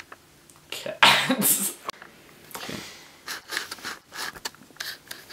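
Stifled laughter: short, noisy bursts of breath, the loudest about a second in, followed by several smaller ones spread over the next few seconds.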